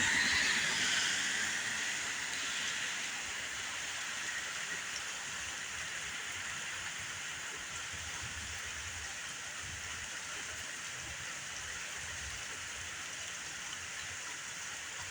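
Steady rain falling, a constant even hiss. A louder rushing sound fades away over the first couple of seconds.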